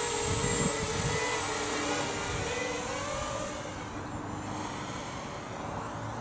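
A small 200 mm quadcopter's DYS 1306 3100kv brushless motors and 4-inch propellers whine as it lifts off and speeds away on a 2S battery. The pitch wavers, and the sound fades after about three and a half seconds as the quad gets further off.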